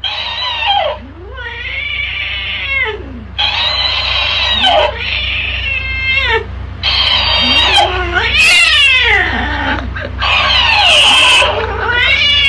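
Tabby cat yowling at a talking-hamster plush toy: a series of long, drawn-out cries, one after another, each rising and falling in pitch.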